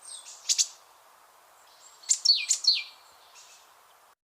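A bird chirping: a couple of short, high chirps, then about two seconds in a quick burst of several notes that slide downward in pitch. A fainter call follows, and the sound cuts off abruptly near the end.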